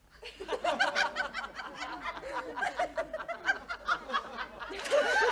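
A crowd of people laughing and chuckling, many voices at once, starting just after a moment of silence and swelling again near the end.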